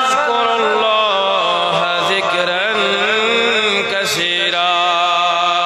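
A man's voice chanting Quran recitation through a microphone and PA: long, melodic held notes with ornamented turns of pitch, and a short break about four seconds in.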